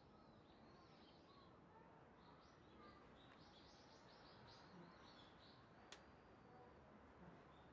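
Near silence with faint small birds chirping: a quick run of short chirps in the middle and a few scattered ones elsewhere. There is one faint sharp click about six seconds in.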